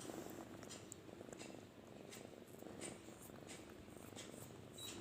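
Kitten purring steadily close to the microphone, a fast even rattle, with faint short clicks now and then.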